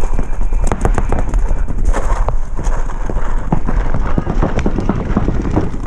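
Irregular rapid pops and clicks of paintball markers firing, mixed with a running player's footsteps and gear knocking, over a low wind rumble on the helmet-mounted camera.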